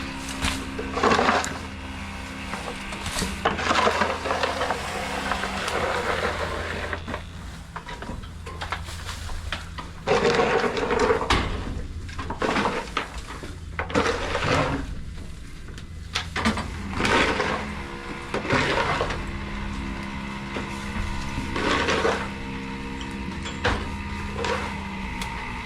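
Shovel scraping and scooping old feed out of a calf feed bunk, in repeated short strokes at irregular intervals, over a steady low machine hum.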